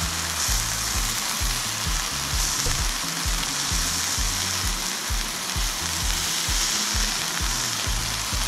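Two thick steaks sizzling steadily in an oiled frying pan as they sear, with their fat running out into the pan.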